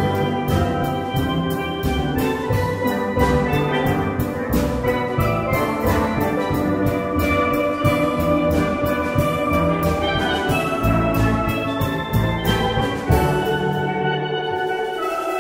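Live instrumental music: an ensemble of pitched instruments playing over a steady drum beat.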